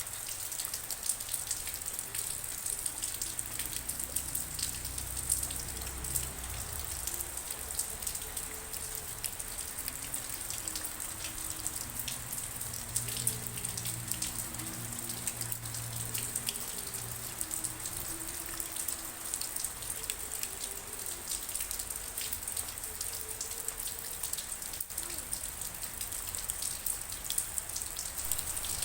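Steady rain falling, with many individual drops ticking on hard surfaces over an even hiss.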